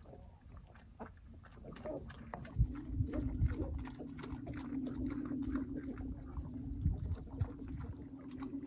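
An animal drinking greedily from a water bucket, lapping and slurping in many quick wet clicks with a few heavier splashing thumps. A steady low drone joins about two and a half seconds in.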